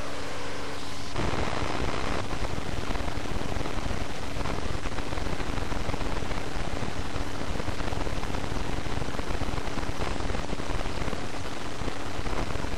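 Steady rushing noise with a faint low hum, and no clear separate events.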